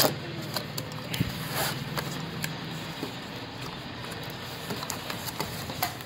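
Cardboard box being opened by hand: scattered clicks, scrapes and rustles of flaps and packing, over a steady low hum.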